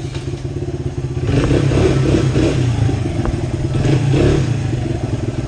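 Honda XR100's small air-cooled single-cylinder four-stroke engine running, getting louder from about a second in with a few blips of the throttle, then easing back toward idle.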